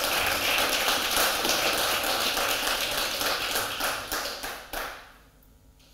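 Audience applauding, a dense clatter of many hands clapping that fades out near the end.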